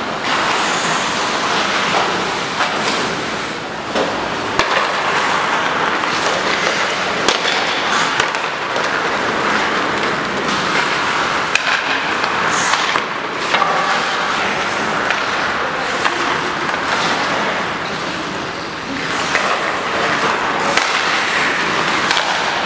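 Ice hockey skates scraping and carving across the ice, with a few sharp clacks of sticks hitting pucks.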